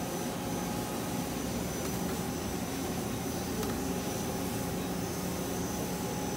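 Star SR-32J CNC Swiss-type lathe running: a steady mechanical hum with a thin high whine over it.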